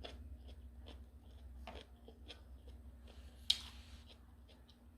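A person chewing food close to the microphone: faint scattered mouth clicks and smacks, with one sharp click about three and a half seconds in.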